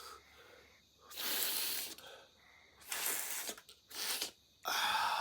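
A person sniffing hard through a congested nose, four long breathy sniffs, drawing garlic-warmed oil up the nostrils. The nose is fully blocked with a cold.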